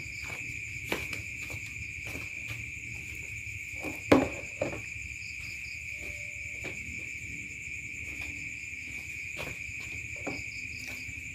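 Insects trilling steadily in one continuous high buzz, with a few faint clicks and a sharper knock about four seconds in.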